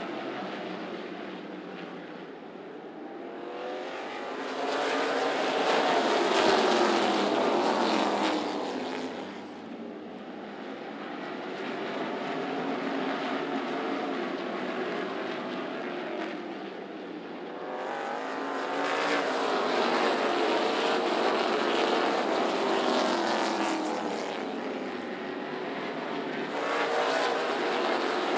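A pack of NASCAR K&N Pro Series stock cars' V8 engines at racing speed, passing close by. The sound swells loud about four seconds in, fades, then swells again from about eighteen seconds on, with the engine pitch bending as the cars go past.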